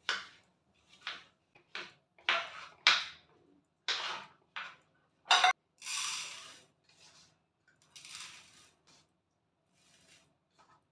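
Dishes and kitchen utensils clinking and knocking together, about a dozen separate sharp clatters, with two longer noisy sounds of about a second each in the middle.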